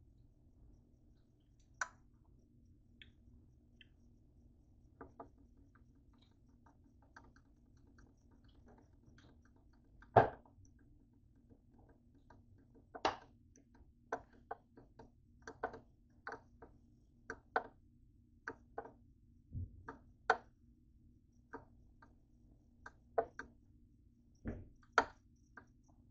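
Irregular light clicks, taps and a few sharper knocks of hands handling honey packets, a cinnamon shaker and a plate on a kitchen counter, the sharpest knock about ten seconds in. A faint steady low hum runs underneath.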